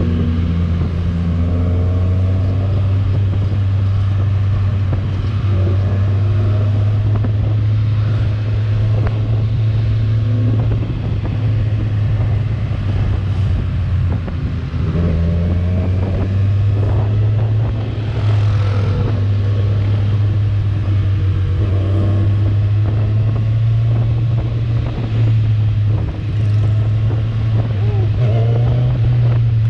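Kawasaki Z1000R's inline-four with its stock exhaust, running under way on a ride; the engine note holds a steady low drone, and its pitch rises and falls now and then as the throttle and gears change.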